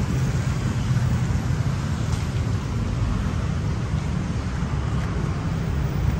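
Steady loud low rumble of a canal boat's engine under way, with wind buffeting the microphone.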